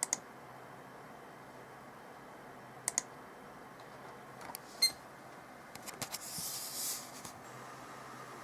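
Scattered sharp clicks and a short beep near five seconds over the steady hum and hiss of a PC's cooling fans, with a brief high hissing rush about six seconds in, as the computer boots from an installation disc.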